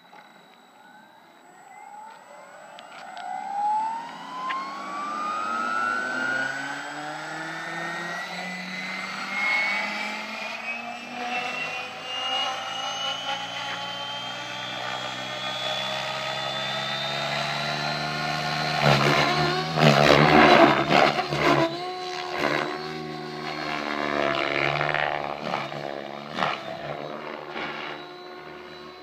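JR Propo Forza 700 electric RC helicopter spooling up: the motor and rotor whine rises steadily in pitch for most of the first eighteen seconds as it lifts off. Then, as it flies, there are bursts of louder rotor noise, and the pitch shifts with its manoeuvres.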